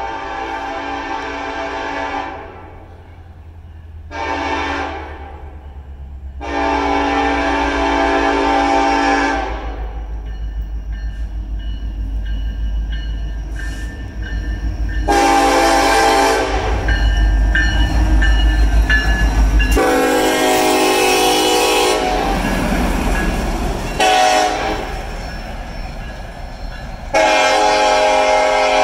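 Nathan K5LLA five-chime train air horn sounding grade-crossing blasts, seven in all in two runs: long, short, long, then long, long, short, long. In between, an EMD SD70ACe diesel locomotive's engine grows loudest as it passes about halfway through, followed by the noise of the train's wheels rolling on the rails.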